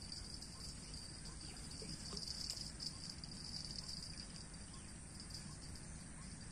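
Steady, high-pitched chorus of insects chirring, with a faint low rumble underneath.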